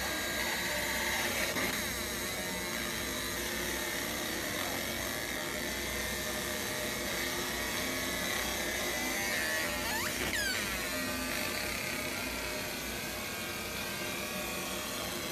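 Fiber laser marking machine running while it marks a phone's metal back: a steady high-pitched buzz over a low hum, with a quick whine sweeping up and down about ten seconds in.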